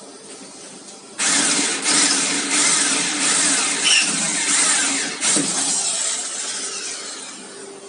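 Bosch corded electric drill running under load, its bit grinding into metal with a harsh, loud noise. It starts about a second in, breaks off briefly around five seconds, then carries on more quietly and fades near the end.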